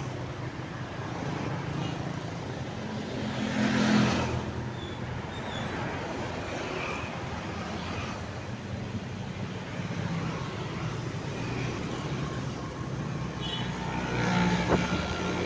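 Road traffic: a steady motor-vehicle rumble, with a vehicle passing close about four seconds in and another swell near the end.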